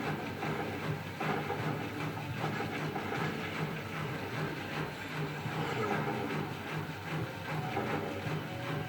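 Siemens Extraklasse F1300A washing machine running, a steady mechanical noise with hiss and a faint, evenly repeating pattern from the turning drum.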